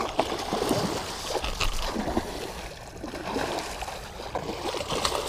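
Hooked muskellunge thrashing and splashing at the water's surface beside the boat: a run of irregular splashes and slaps of water that starts suddenly.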